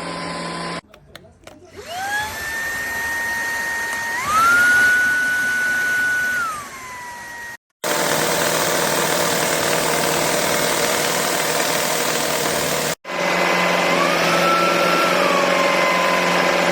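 Cordless stick vacuum running. Its motor spins up to a steady high whine, steps up in pitch for a couple of seconds, then drops back. The sound cuts off abruptly twice, with a louder even rushing of air in between, before the whine returns and rises and falls once more.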